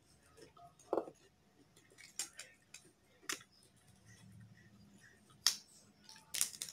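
Eating by hand with scattered, sharp, crisp clicks of chewing and mouth smacks. A raw cabbage leaf is torn apart in the fingers.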